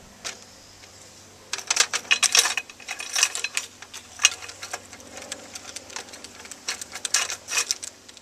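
Irregular metallic clicking and rattling of a linked belt of 7.62 mm NATO cartridges being handled into an M60D machine gun's feed tray while it is loaded, starting about a second and a half in.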